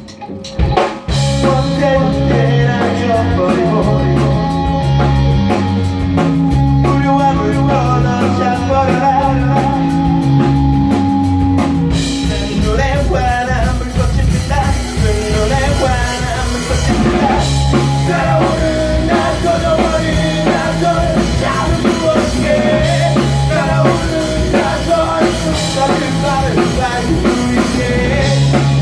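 Live rock band playing at full volume: electric guitar, bass and drum kit, after a brief break right at the start. A male voice sings into the microphone in the second half.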